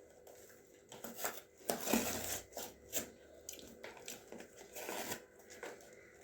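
Close-up eating sounds from fast food: irregular crunchy bites and chewing, heard as a scatter of short crackles.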